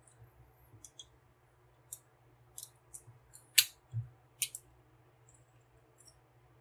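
Plastic parts of a transforming robot action figure clicking as they are bent and moved into place: scattered light clicks, the sharpest a little past halfway, with a soft knock just after.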